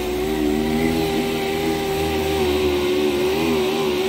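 Orbital sander running steadily on a bus's side skirt panel, sanding down body filler: a whirring motor hum over a sanding hiss, its pitch wavering slightly as the sander is pressed and moved.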